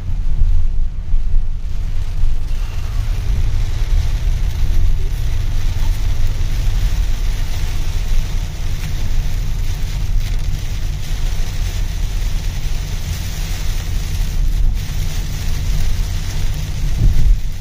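Heavy rain hissing on a moving car over a steady low rumble from the road.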